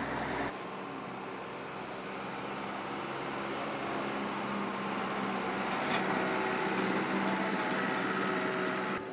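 A vehicle engine running steadily, slowly getting louder.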